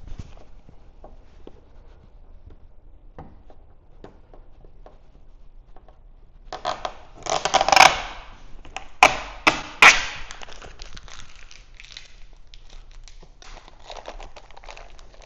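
Self-adhesive vinyl tint film being peeled away with a loud ripping sound for about two seconds, followed by three sharp snaps and then crinkling as the loose film is handled. Soft rustles and taps come before the peel.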